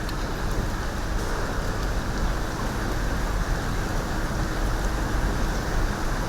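Steady rushing background noise with no clear pitch, even in level throughout.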